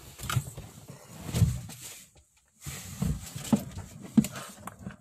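Rustling, bumping and scattered knocks of a phone being handled and moved about against clothing.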